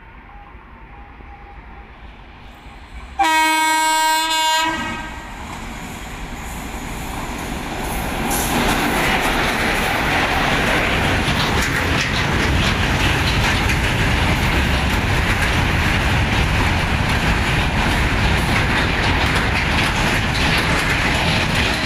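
Freight train hauled by WAG-9 and WAG-7 electric locomotives: the locomotive's horn gives one blast of about a second and a half, then the noise of the train swells over a few seconds as it arrives and stays loud and steady while its wagons run past close by, wheels clicking over the rail joints.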